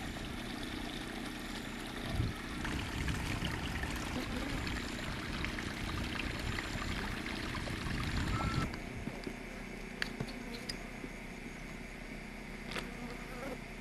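Creek water trickling over rocks, a steady hiss. About two-thirds of the way through it cuts off abruptly to a quieter background with a few faint clicks.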